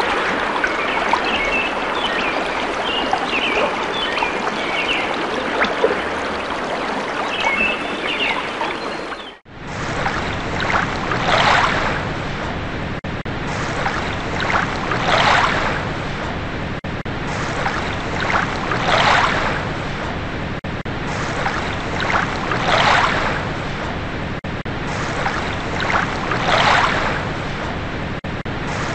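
Flowing water with birds chirping, then an abrupt cut about nine seconds in to ocean waves washing in, one surge about every four seconds.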